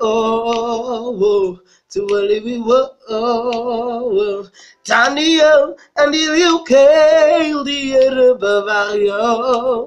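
A teenage boy singing a gospel melody unaccompanied, in sung phrases with short breaths between them. The notes are held, and from about halfway through they carry a clear vibrato.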